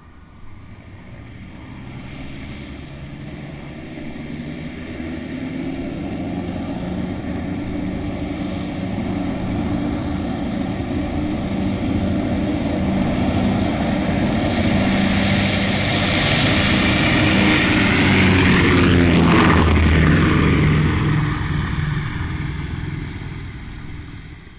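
Propeller airplane approaching and passing overhead: its engine drone grows steadily louder, peaks about 19 seconds in as the pitch drops, then fades away.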